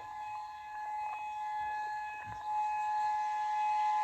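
Outdoor civil defense warning siren, just wound up and now holding one steady pitch with overtones.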